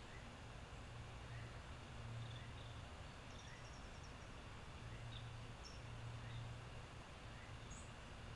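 Faint outdoor ambience: a low hum with small high chirps repeating every second or so, and a few higher chirps now and then, like birds calling in the garden.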